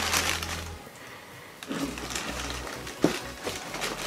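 Tissue paper rustling and crinkling in several short bursts as it is folded back from a football boot in a cardboard shoebox, with one sharp tap about three seconds in.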